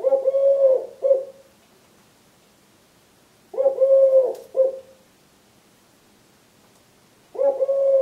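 Male Eurasian collared dove cooing: a long note followed by a short one, repeated about every three and a half seconds, the third call starting near the end. It is his nest-site song, the one his owner calls his "please lay eggs" song.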